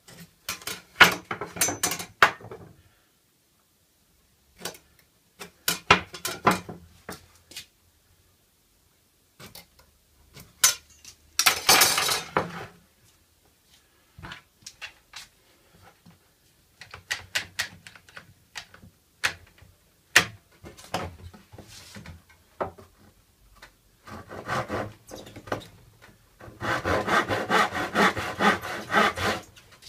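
Scattered clicks, knocks and scraping as a square, pencil and quick clamps are handled on a wooden workbench and a pine board is clamped down. About three seconds before the end, even back-and-forth strokes begin, a hand saw cutting into the clamped board.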